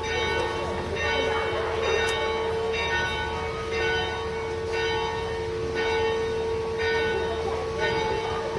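Church bells ringing: bells of several pitches struck about once a second, each strike ringing on over the steady hum of one sustained bell tone.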